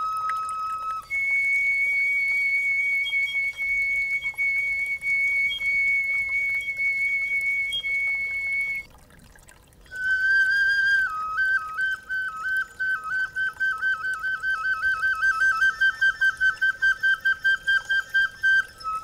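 Reconstruction of a Stone Age bone flute (a swan radius bone bearing copies of the finger holes of the 35,000-year-old Geissenklösterle GK1 flute) playing a slow, breathy melody. A long held high note gives way, after a breath about nine seconds in, to a lower note that becomes a rapid trill between two close pitches, about three or four a second.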